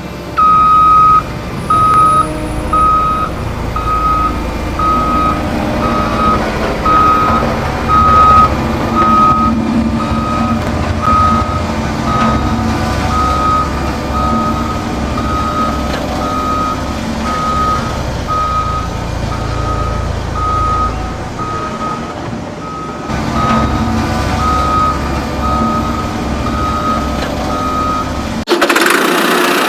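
Vehicle reversing alarm beeping about twice a second over a low motor rumble. Near the end it cuts off and a louder, hissier sound takes over.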